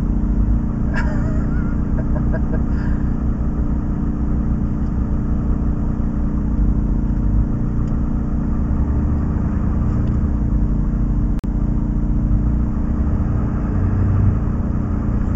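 Fire engine's motor running steadily while the truck stands parked, a steady low drone heard from inside the cab. A brief click comes about eleven seconds in.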